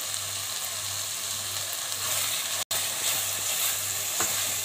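Onion-tomato masala paste sizzling as it fries in oil in a non-stick pan, stirred with a silicone spatula; the oil has not yet separated from the masala, so it is still cooking down. The sound cuts out briefly just under three seconds in.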